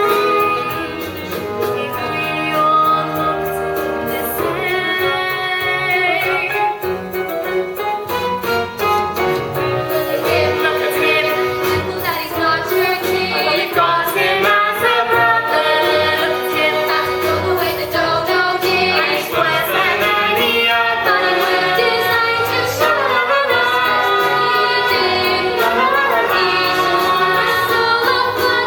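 A musical-theatre song sung by young performers' voices, female voices to the fore and at times in chorus, over instrumental accompaniment.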